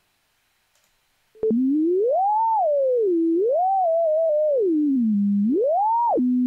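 Pure sine-wave tone from a p5.js oscillator, its pitch swept by the mouse between about 200 and 1000 Hz. It starts with a click about a second and a half in, glides up and down three times, then holds a steady low tone near the end.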